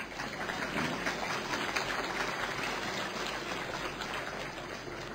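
Faint audience applause: an even patter of many small claps, easing off toward the end.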